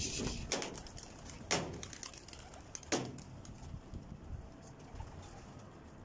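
A flock of domestic pigeons in flight just after taking off, wings flapping, with sharp claps about half a second, a second and a half, and three seconds in. The sound fades as the birds climb away.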